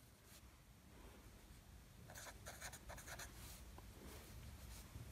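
Felt-tip marker pen writing on paper: faint short strokes, with a quick run of them from about two seconds in.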